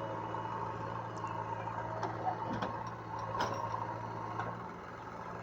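Diesel engine of heavy farm or earthmoving machinery running steadily, with a few sharp knocks of metal.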